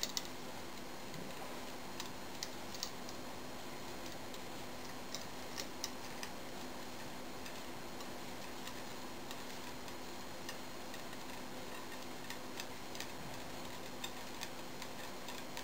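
Small, irregular clicks and ticks from the threaded star-nut installer tool being worked loose by hand at the bottom of the fork steerer, over a steady low room hum.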